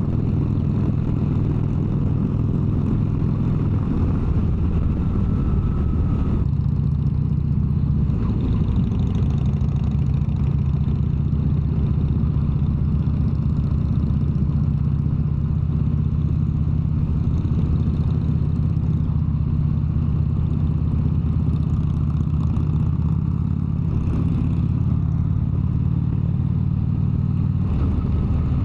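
Harley-Davidson V-twin motorcycle engine running steadily at highway speed. Its note shifts slightly about four seconds in and again near the end.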